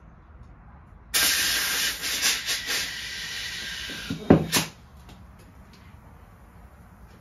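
Compressed air hissing from a shop air hose. It starts suddenly about a second in, wavers for about three and a half seconds, and stops with a few sharp knocks.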